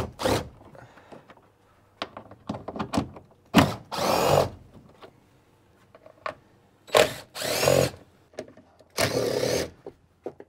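A power drill run in several short trigger bursts, each about half a second to a second long, its whine climbing as the motor spins up, with clicks and knocks between the bursts.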